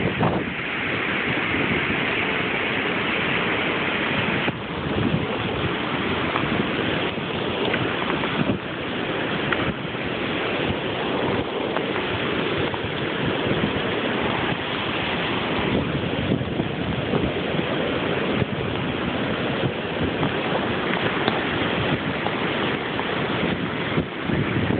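Storm wind buffeting the microphone and heavy rain falling on a flooded street: a steady rushing noise.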